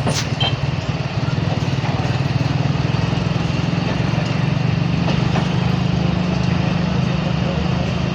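Steady, pulsing low rumble of a Pakistan Railways train with its diesel engine running, and a sharp click at the very start.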